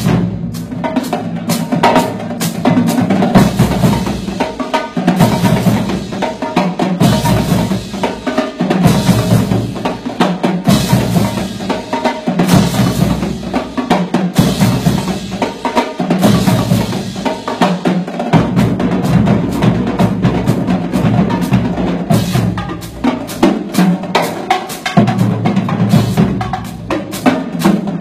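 Drumline playing: rapid snare drum hits over low bass drum notes that change pitch.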